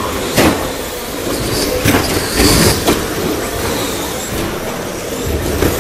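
Radio-controlled short course trucks racing on an indoor carpet track: motor whine and tyre noise, with several sharp knocks of trucks crashing into the track borders and each other.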